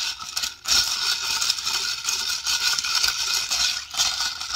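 Ice cubes rattling inside a tumbler of iced coffee as it is shaken for about three seconds, mixing in the creamer.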